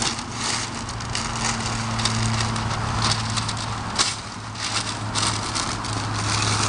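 Newspaper crumpling and rustling in irregular bursts as sheets are pulled apart and stuffed into the gaps of a stacked firewood pile, with the odd knock of paper and hands against the split logs. A steady low hum runs underneath.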